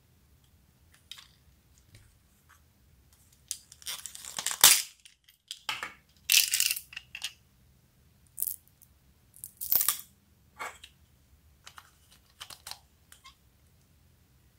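Hands handling small hard plastic objects, a toy airplane and oval plastic beads, making scattered clicks and rustles. The loudest clusters come about four to five seconds in, again near six and a half seconds, and near ten seconds.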